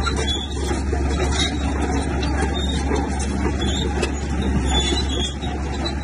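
Bulldozer's diesel engine running steadily under work, an even heavy-machine drone without pauses.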